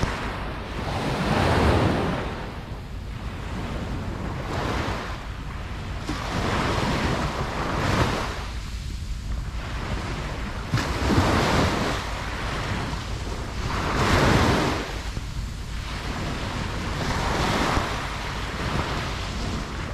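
Ocean waves breaking on a beach, the surf swelling and falling away every three seconds or so.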